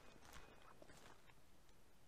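Faint footsteps and rustling of dry bracken as someone walks through low undergrowth.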